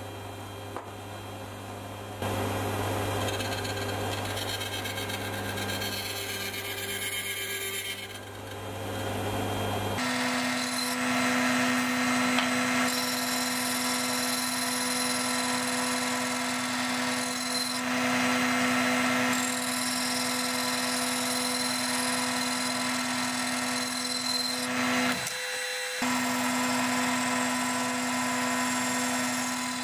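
Toolpost grinder's 400 W spindle spinning a small grinding wheel against a metal part turning in the lathe, a steady machine hum. About ten seconds in it changes to a steady whine with grinding hiss, broken by a brief dip near the end.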